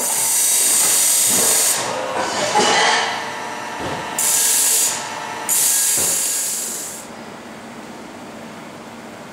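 Bench disc sander grinding a titanium exhaust pipe section, in three bursts of high-pitched grinding as the pipe is pressed against the abrasive disc. About seven seconds in it falls away to a quieter steady background.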